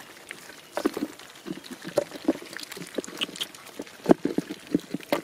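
Irregular wet slaps and squelches of live fish flopping on soft mud, mixed with hands grabbing in the mud, a few short splats a second.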